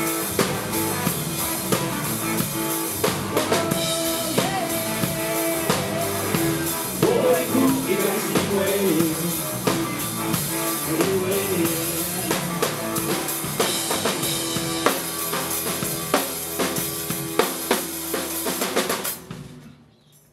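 Live rock band playing an instrumental ending, with a drum kit loud and close: kick, snare and rimshots over sustained pitched instruments. The music stops about a second before the end.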